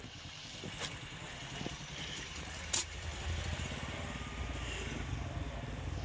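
An engine running steadily at low speed: a low, pulsing rumble, with a few light clicks and knocks over it.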